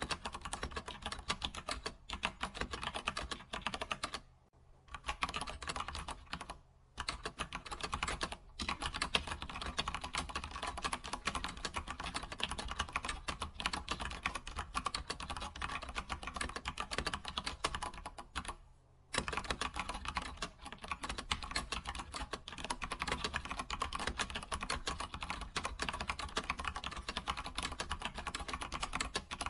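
Computer keyboard being typed on steadily, a rapid run of key clicks broken by a few short pauses, one near the start and a longer one about two-thirds of the way through.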